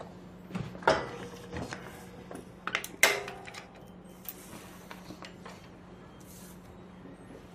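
A few light knocks and clinks of small objects on a hard surface over a steady low hum. The loudest comes about three seconds in and rings briefly; another sharp knock falls about a second in.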